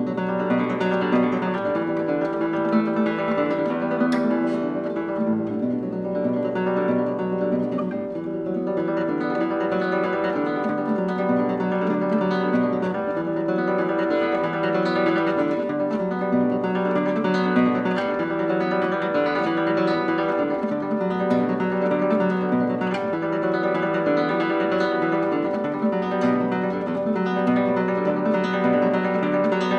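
Solo nylon-string classical guitar played fingerstyle: a continuous flow of plucked notes and chords with no break.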